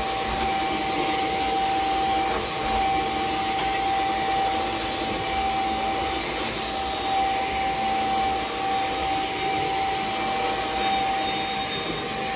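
Stick vacuum running steadily while its powered floor head is pushed back and forth over carpet: an even rush of air with a steady high motor whine.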